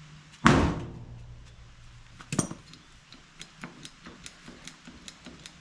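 Hammer blows on the steel body panel of a 1979 Ford F250, knocking out a dent: one hard ringing strike about half a second in, a second sharper strike past the two-second mark, then a run of quick light metallic taps, about four a second.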